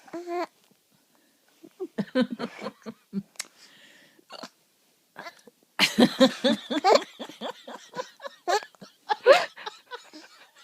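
A young boy laughing in short bursts, broken by hiccups; the laughter comes in quick runs and turns to squeals near the end.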